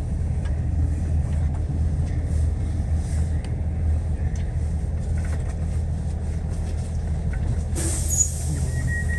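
Steady low rumble of a Class 22000 diesel railcar's underfloor engine and running gear, heard inside the carriage at a station. Near the end a hiss sets in, with a short high beep just before it cuts off.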